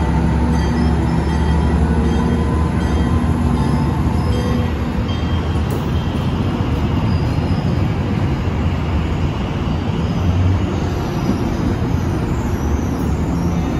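A Tri-Rail commuter train of bilevel coaches rolls past close by, making a steady heavy rumble of wheels on rail. The diesel locomotive's engine drone fades over the first few seconds as it pulls away, and a few faint high squeaks come near the end.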